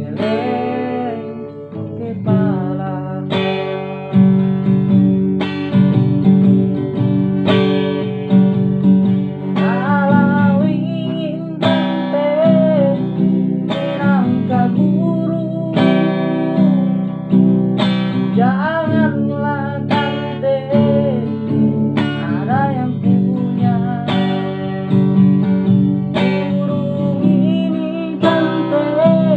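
Music: an acoustic guitar strummed with a new chord about every two seconds, under a singing voice carrying a wavering melody.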